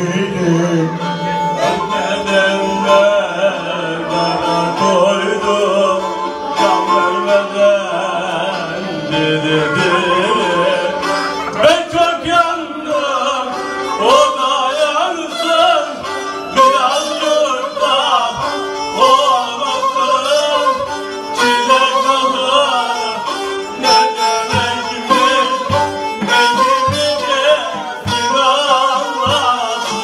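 Turkish folk music on a bowed kemane, its wavering melody carried along with a man singing. Low regular drum beats come in during the last few seconds.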